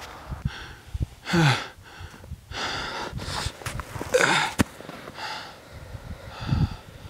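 A person breathing hard in a run of ragged, wheezing gasps, about one a second, one of them voiced and falling in pitch, with a few sharp clicks in between.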